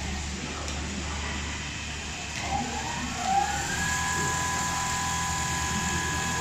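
Richpeace automatic cushion case sewing machine running, with a low mechanical hum and the whine of its drive motors. The whine dips and climbs back up about two and a half to three and a half seconds in, then holds a steady pitch.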